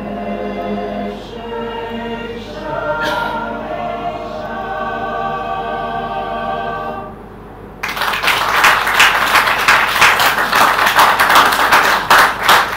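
Mixed choir singing held chords, ending about seven seconds in; about a second later the audience breaks into loud applause.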